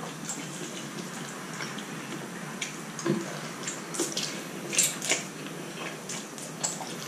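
A person eating spicy instant noodles: wet slurps as noodles are drawn in from chopsticks, with chewing and lip smacks. The louder slurps come from about three to five seconds in, and once more near the end.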